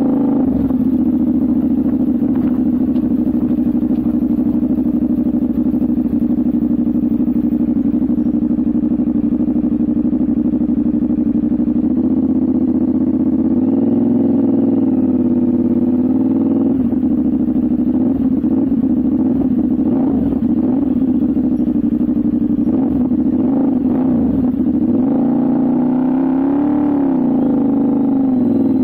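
CFMOTO 450SR's parallel-twin exhaust running at a low, steady engine speed while riding. From about halfway through, the revs rise briefly and fall back a few times, the biggest rise near the end.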